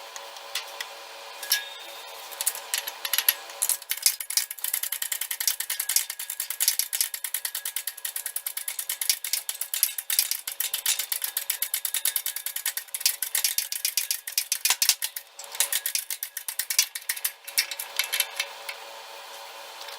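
Keyway broach cutting through a metal pulley bore: a rapid, irregular run of metallic clicks and ticks that starts a few seconds in and stops near the end.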